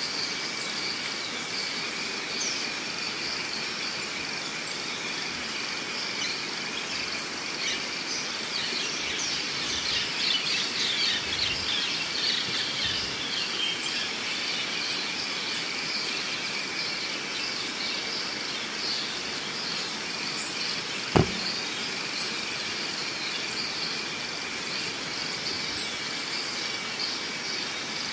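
Outdoor ambience of steady high insect buzzing at two pitches with a faint tick repeating about once a second, and birds chirping for several seconds in the middle. A single sharp click sounds about two-thirds of the way through.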